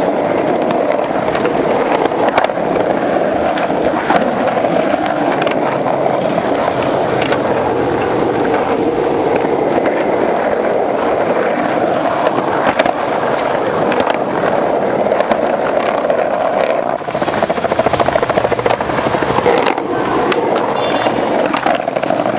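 Skateboard wheels rolling over rough pavement: a loud, steady rumble broken by scattered sharp clicks.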